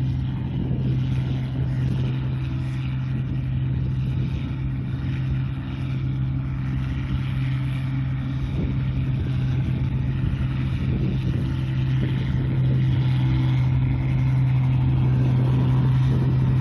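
Rice combine harvester's diesel engine running steadily under load while it cuts and threshes the paddy, with one steady engine tone and the whir of the threshing machinery. It gets a little louder in the last few seconds as the machine comes closer.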